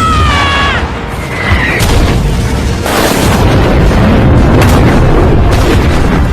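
Anime battle sound effects: a high, drawn-out cry that falls slightly and ends within the first second, then loud booming explosions and rumble, with sharp impacts about three, four and a half, and five and a half seconds in.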